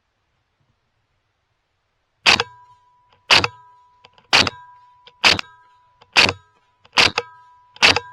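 Suppressed Ruger 10/22 firing subsonic .22 LR rounds in rapid succession: after about two seconds of quiet, seven shots about a second apart, the magazine being emptied into a coyote. A faint steady high tone sounds under the shots from the second one on.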